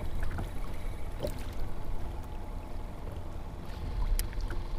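Small waves lapping and splashing against a kayak hull, over a steady low rumble, with a few faint ticks.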